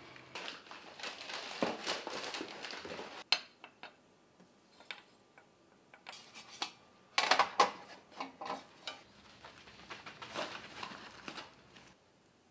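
Handling sounds in bursts: rustling and clicks, then stainless steel cookie cutters clattering and clinking together on a wooden table about seven seconds in, the loudest part, with more rustling near the end.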